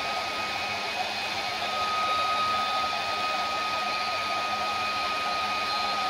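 Electric heat gun running steadily, its fan blowing with a steady thin whine, as it shrinks heat-shrink tubing over a crimped quick disconnect terminal.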